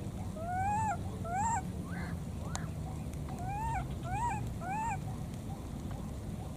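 Baby monkeys crying: short whimpering calls that each rise and then fall in pitch, coming in two runs of about three, the first run about half a second in and the second after about three and a half seconds.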